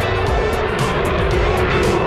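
Engine noise of a low-flying aircraft coming closer and growing louder, under background music.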